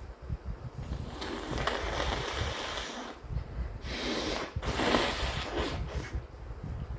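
A person blowing a wet, congested nose: two long, breathy blows of about two seconds each, the second broken briefly.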